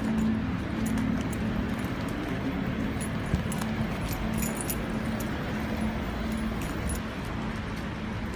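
Footsteps of someone walking in flip-flops on brick paving, with scattered light high clicks and jingling, over a steady street background.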